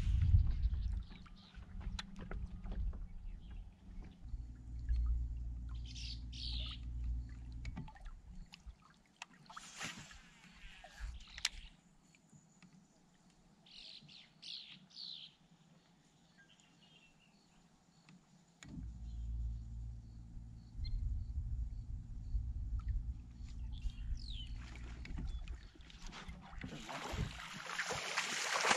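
Electric trolling motor humming steadily, cutting off about eight seconds in and coming back on about two-thirds of the way through. Small birds chirp a few times in the quiet gap, and a loud burst of noise comes near the end.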